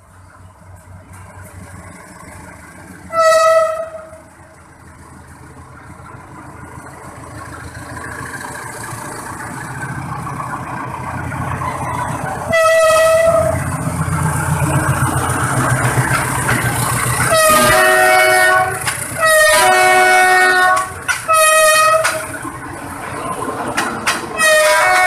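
GE U15C diesel locomotive approaching and passing, its engine rumble building as it nears. It sounds its horn six times: a short blast about three seconds in, another near the middle, then longer blasts in quick succession in the second half. The train of ex-JR 203 series EMU cars it hauls rolls by near the end.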